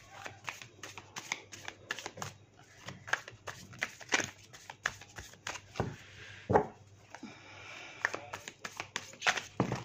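A deck of tarot cards being shuffled by hand: a run of quick, irregular card snaps and slides, with a few louder slaps about six seconds in and near the end.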